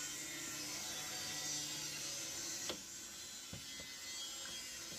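Hard plastic motorcycle side pannier being fitted: one sharp click about two and a half seconds in, then two soft knocks, over a faint steady hum.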